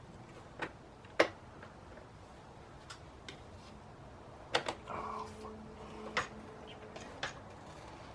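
Scattered sharp metallic clicks and taps of a wrench fitted to and worked on a dirt bike fork's top nut as it is tightened to 20 ft-lbs.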